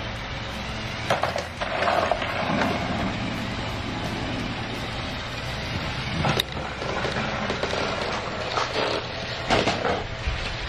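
Battery-powered toy trains running on plastic track: a steady motor whir, with a few sharp clicks and knocks of the engines and track.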